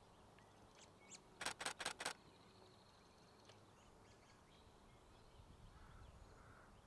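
Nikon Z6 II camera shutter firing four times in a quick burst about a second and a half in, over a quiet outdoor background with a few faint high bird chirps.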